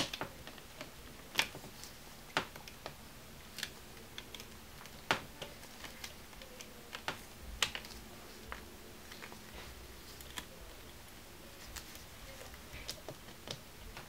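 Irregular light clicks and taps of a small screwdriver working at the clips that hold a laptop LCD panel's flex cable.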